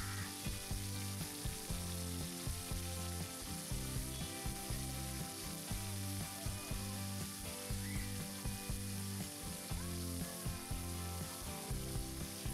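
Background instrumental music with a steady beat over a constant hiss.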